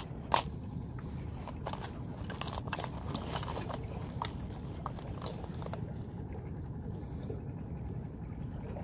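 Close small clicks and rustles of hands handling fishing tackle (hooks, line and a plastic hook box), with one sharper click just after the start, the clicks thinning out about two-thirds through. Under them a steady low rumble of wind.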